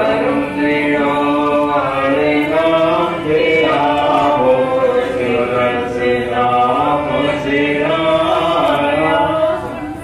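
Voices singing a Sikh devotional hymn (kirtan) together, a slow melody in long held notes with brief breaks between phrases.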